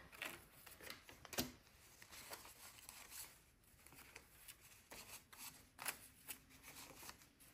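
Faint rustling and soft flicks of paper banknotes being handled and pulled from a stack, with a sharper tick about one and a half seconds in.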